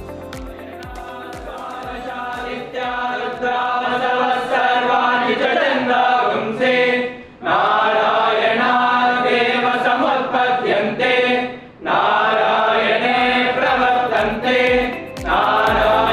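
A group of young men singing a prayer chant in unison, with three short breaks for breath. It comes in about two and a half seconds in over fading instrumental music with a steady beat.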